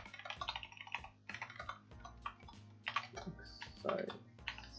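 Typing on a computer keyboard: an irregular run of keystroke clicks as a line of code is typed.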